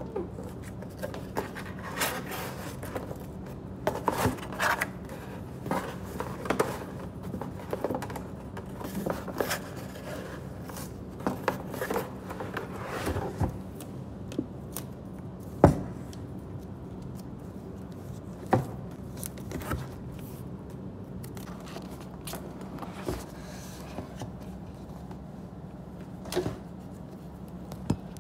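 Cardboard shipping box and a MacBook Air's white retail box being handled and opened: irregular scraping, rustling and tapping of cardboard, with one sharp knock a little past halfway, over a steady low hum.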